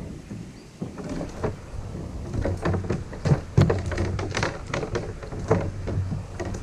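A kayak being paddled and pushed through a flooded, brushy creek: a run of knocks, splashes and scrapes, with two heavier thumps about three and a half seconds in.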